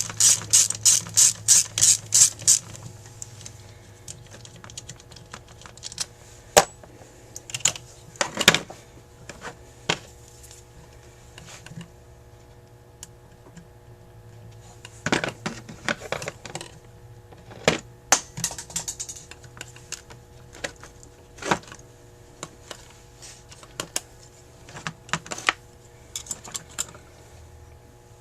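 A hand ratchet clicking fast and evenly, about five clicks a second, stops about two and a half seconds in. Scattered clicks and clinks of hand tools and small metal parts follow during the carburetor teardown.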